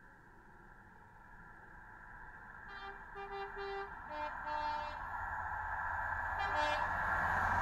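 Train approaching and sounding a two-tone horn, a high note then a low note about three seconds in, with another short blast near the end. Its running drone grows steadily louder throughout.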